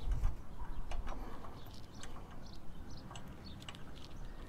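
Scattered light metal clicks and ticks from handling the pin and handle of a steel motorcycle jack, with small birds chirping now and then. A low rumble is heard near the start.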